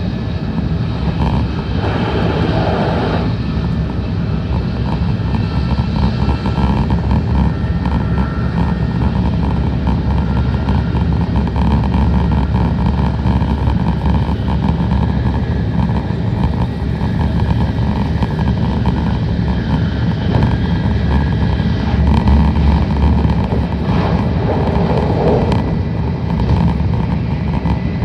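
Tokaido Shinkansen train heard from inside the passenger car while running at speed: a steady low rumble and hiss of wheels on rail. Two brief swells of mid-pitched rushing noise come about two seconds in and near the end.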